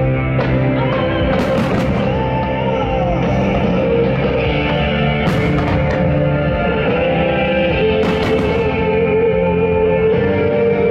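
Rock music with a held, wavering lead guitar line, loud and steady, with a few sharp crashes cutting through every few seconds.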